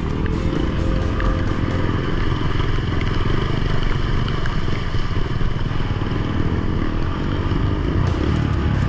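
Dirt bike engine running steadily while riding through a shallow river, mixed with background music.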